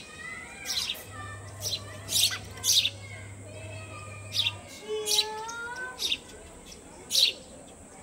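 Sparrow nestlings cheeping from a nest box: short, sharp high chirps about once a second, irregularly spaced. These are begging calls from chicks gaping at the entrance hole.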